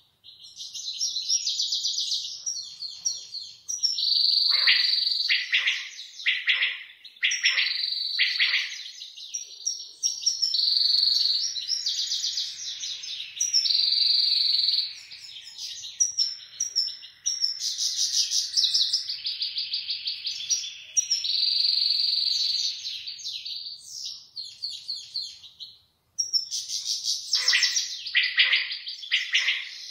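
Caged goldfinch singing: long runs of fast twittering and trilled notes broken by short pauses, with a break of about two seconds near the end.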